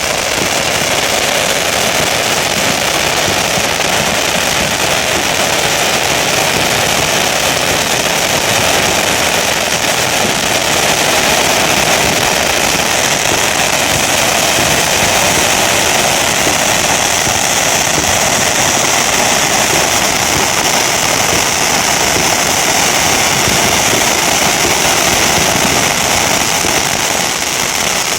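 Ten firework fountains spraying together, a loud, steady, dense hiss.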